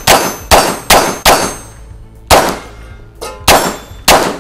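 A Glock pistol fired in rapid strings at steel plate targets, with metallic clangs ringing from the plates. About seven shots: four in quick succession over the first second and a half, then three more spaced out.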